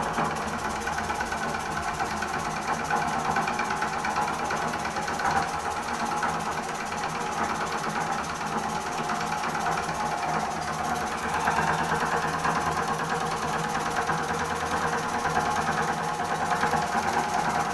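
Homemade model steam engine running fast and steady, a rapid mechanical chatter with a hiss of escaping steam.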